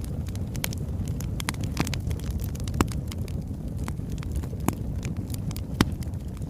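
Wood fire burning logs: a steady low rumble of the flames with constant small crackles and a few sharper, louder pops, the loudest near the end.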